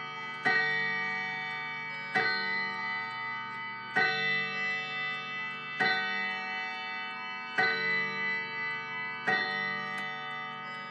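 Howard Miller Worthington mechanical mantel clock striking the hour, part of its count of ten o'clock. Six single strokes about 1.8 s apart, each ringing on and fading, the last dying away near the end.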